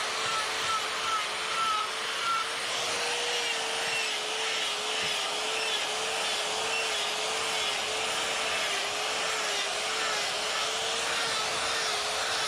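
Die grinder with a burr running steadily and cutting into wood, a high whine that wavers slightly in pitch over a hiss of grinding.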